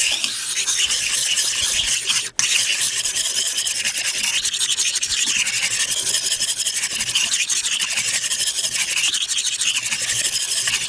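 Kitchen knife blade being stroked back and forth on a wet whetstone, grinding the edge: a continuous gritty scraping, broken off briefly about two seconds in.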